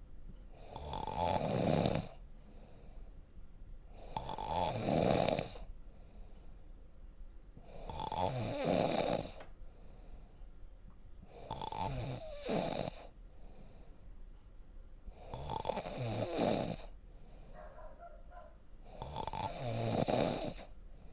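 A sleeping person snoring in a steady rhythm, one rattling snore on each breath roughly every three and a half to four seconds, six in all, with quieter breathing between.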